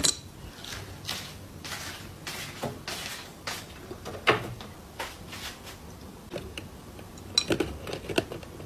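Irregular short knocks, clicks and scrapes of handling against wooden cabinetry and a metal wrench. The loudest knock comes about four seconds in, and a quick cluster of clicks comes near the end.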